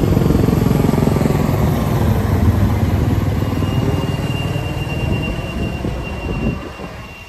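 Military helicopter flying overhead, its rotor beating and engine running loudly, then fading away over the last two seconds. A faint, steady high tone comes in about halfway through.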